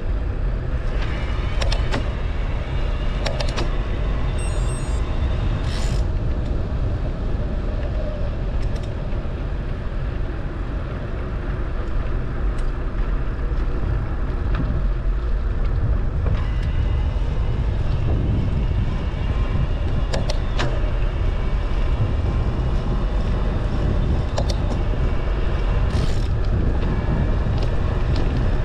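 Steady road and wind rumble of a moving vehicle, heard from on board, with a few sharp clicks or rattles along the way.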